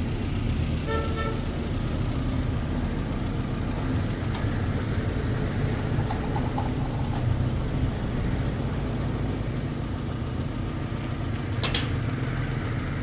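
Steady low rumble of a motor vehicle engine running. There are a few brief faint tones about a second in, and one sharp click near the end.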